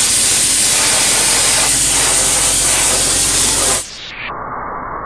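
Abrasive media-blasting nozzle spraying grit with compressed air against the sheet-metal inside of a car door: a loud, steady hiss. About four seconds in it turns quieter and muffled.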